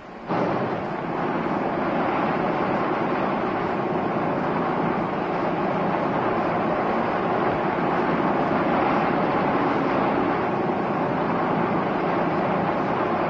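Steady rushing of wind and sea on the open deck of a moving boat, cutting in abruptly a moment in and holding even throughout.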